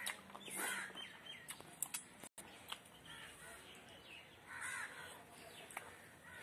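Two harsh, caw-like bird calls, about half a second and four and a half seconds in, over a few soft clicks and smacks of eating rice and curry by hand.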